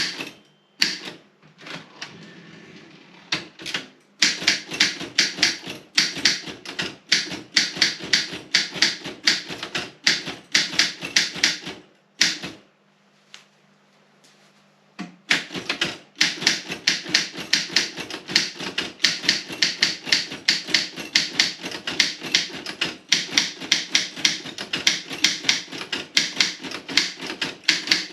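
Robotron 20 typewriter being typed on: quick runs of sharp keystrokes, several a second, broken by a short lull near the start and a pause of about two and a half seconds in the middle.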